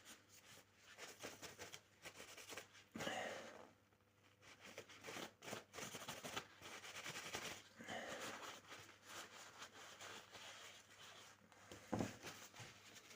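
Faint scratchy rubbing as a cloth wipes excess oil off a pocket knife's freshly oiled wooden handle, with a couple of audible breaths and a single knock near the end.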